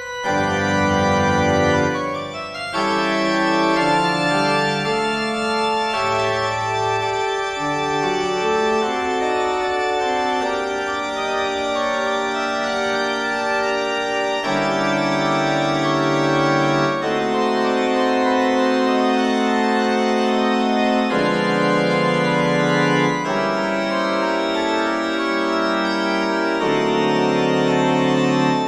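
Organ playing slow, sustained chords over deep bass notes, the chords changing every few seconds.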